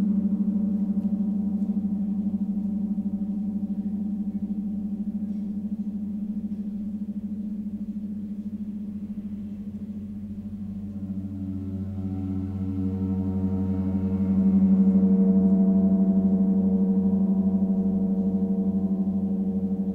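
Large hanging gong played with a soft mallet: a deep, sustained ringing hum rich in overtones, wavering slightly. It swells louder a little past halfway through.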